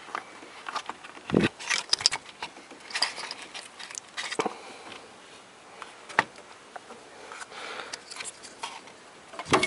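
Small screwdriver clicking and scraping against a plastic electrical connector while prying at it to unlatch it: scattered irregular clicks and taps, the sharpest about a second and a half in and just before the end.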